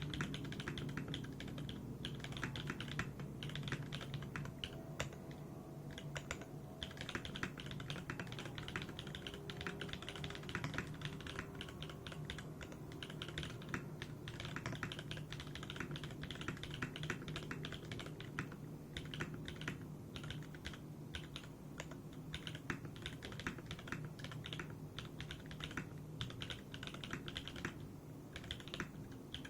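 Fast, continuous typing on a Smith + Rune Iron165 mechanical keyboard with lubed Everglide Dark Jade switches, a carbon fibre plate and PBT keycaps. There is a short pause about six seconds in and another near the end.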